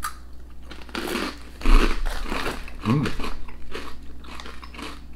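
Crunchy Howdah crescent snacks being bitten and chewed, a run of irregular loud crunches, loudest in the first three seconds, then softer chewing.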